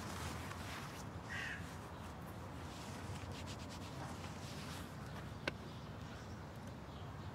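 Quiet outdoor ambience with a low steady rumble and faint rustling, a single short bird call about a second and a half in, and one sharp click about five and a half seconds in.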